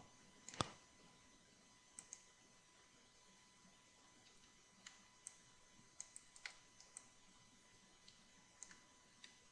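Near silence broken by scattered faint clicks of a computer mouse and keyboard, about a dozen in all, the loudest about half a second in.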